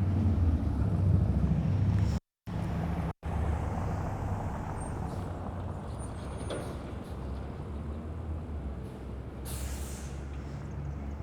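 A large road vehicle's engine running close by, a steady low rumble loudest at first, with a short hiss near the end. The sound cuts out briefly twice about two and three seconds in.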